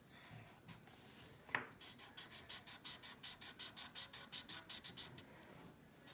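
A Sharpie marker's felt tip scratching on paper, colouring in with quick back-and-forth strokes at about five a second. A single sharp click comes about a second and a half in, before the strokes start.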